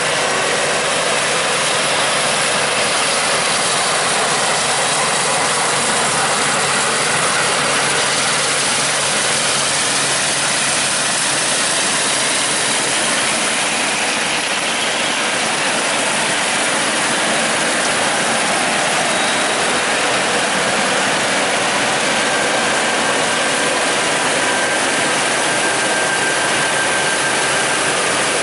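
Combine harvester working, a loud, steady mechanical rush with machinery clatter.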